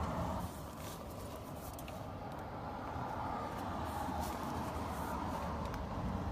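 Steady low rumble and hum of background noise, with a few faint clicks scattered through it.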